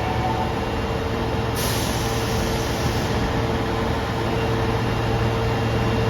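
Osaka Metro 22 series subway train standing at the platform: its equipment gives a steady low hum with a steady mid-pitched tone, and a hiss of air comes in sharply about a second and a half in.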